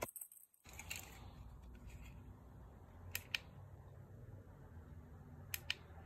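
A small plastic remote control being handled, with two pairs of light clicks from its button being pressed, about three seconds in and again near the end.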